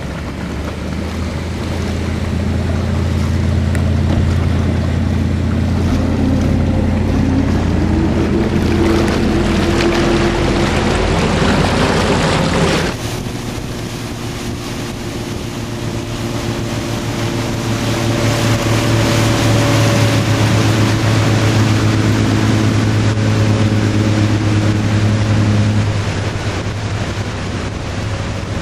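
Motorboat engine running under way, with water rushing and spraying past the hull and wind on the microphone. The engine note rises over several seconds, changes abruptly about halfway through, then holds steady.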